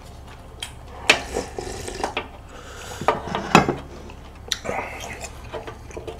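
A wooden spoon scraping across a large white serving dish and knocking against it and a bowl as leftover meat is scooped out, with about five sharp clinks spread through.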